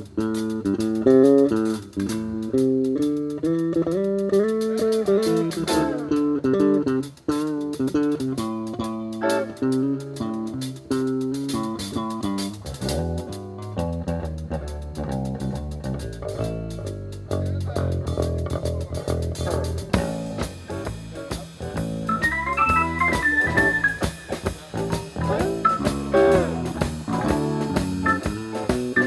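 Live blues band playing an instrumental break: an electric guitar plays a lead line over bass guitar and drum kit, climbing to high notes about two-thirds of the way through.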